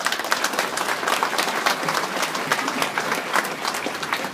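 Crowd applauding with a dense patter of hand claps.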